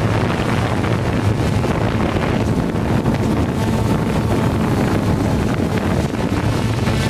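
Hubsan quadcopter's electric motors and propellers running steadily in flight, with a low hum, heard through the drone's own onboard camera microphone and mixed with wind rushing over it.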